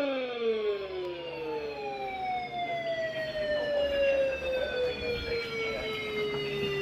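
Outdoor warning siren winding down after a steady tone. One pitch drops quickly in the first half second, while a second slides slowly downward and fades near the end.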